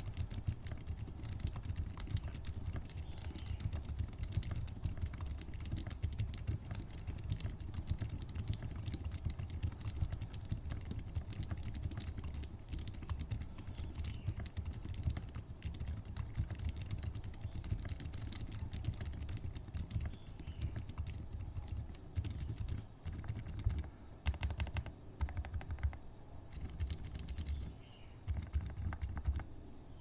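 Fast typing on a Zouya GMK67 mechanical keyboard with Outemu Silent Toms silent tactile switches: a dense, continuous run of soft, deep keystrokes without sharp clicks. The typing breaks off briefly a couple of times in the last several seconds.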